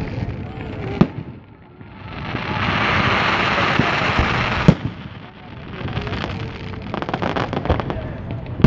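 Grand-finale fireworks: a sharp shell burst about a second in, a dense crackling hiss for about two seconds, another loud bang near the middle, then a rapid run of crackling reports.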